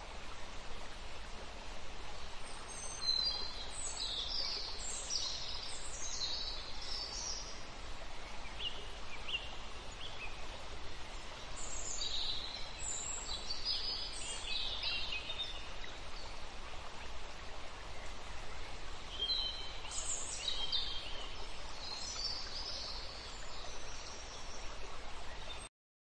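Nature ambience: a steady background hiss with small birds chirping in three bouts of a few seconds each, cutting off abruptly just before the end.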